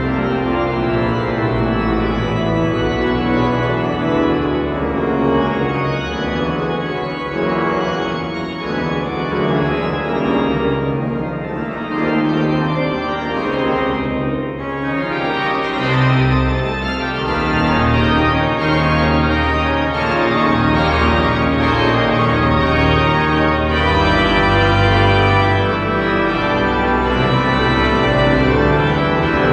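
Large pipe organ playing loud sustained chords in a reverberant cathedral, with deep pedal bass notes entering about halfway through.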